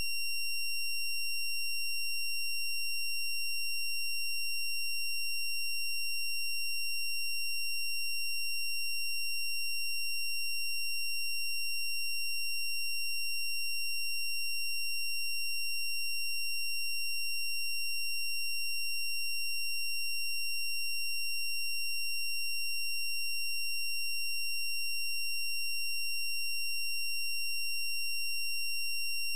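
A steady, unchanging high-pitched electronic tone with a few overtones, holding one pitch throughout, with no other sound.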